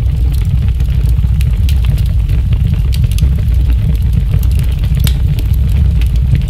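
A loud, steady deep rumble with scattered crackles and clicks over it.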